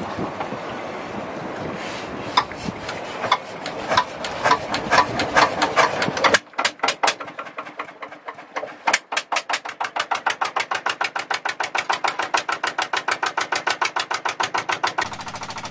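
Single-cylinder diesel engine of an outrigger motor boat being cranked by hand: a few seconds of uneven, quickening turning-over, a brief lull, then it catches and runs with a fast, even chugging knock of about eight beats a second.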